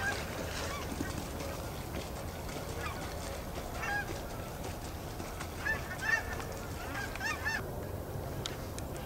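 Canada geese honking: scattered single honks, then a quick run of honks from about halfway through.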